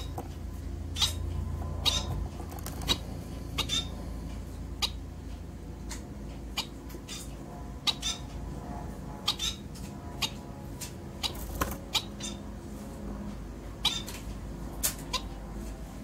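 Bengalese finch giving short, sharp call notes, about twenty scattered irregularly, over a low steady hum.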